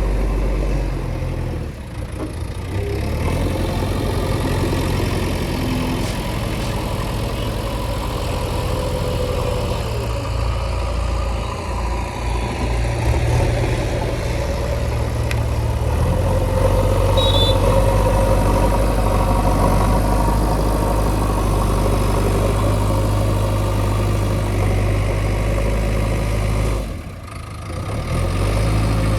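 Heavy diesel engine of a backhoe loader or tractor running steadily, its engine note changing a few times as the load shifts, with a brief drop in level near the end.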